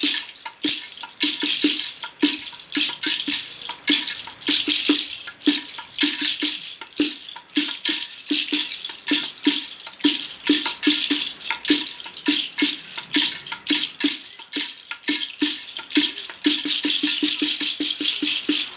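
Hand percussion played in a steady rhythm, about three strokes a second: a shaker-like rattle hiss with a short, low knock on each stroke.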